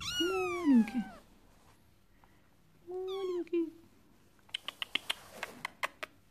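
Young Sphynx kitten meowing twice: a long meow that falls in pitch, then a shorter, steadier one about three seconds in. Near the end comes a run of scratchy rustles and sharp clicks on the quilted satin bedspread.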